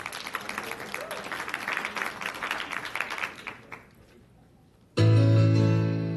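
Audience clapping that dies away about four seconds in; after a second of quiet, a recorded accompaniment starts suddenly with a loud sustained chord that slowly fades.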